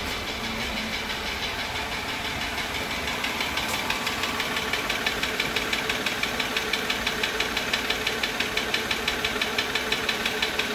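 Mercedes W211's M112 V6 petrol engine idling with an even, rapid ticking from the cylinder head, growing slightly louder and more distinct. The tick has not gone away with thicker 10W-60 oil.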